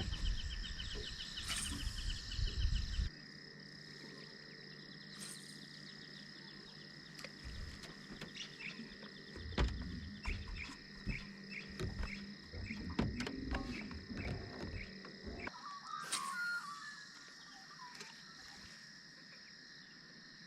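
Steady high-pitched chorus of insects, with scattered light clicks and knocks through the middle. A low rumble stops abruptly about three seconds in, and a brief swish comes near the end.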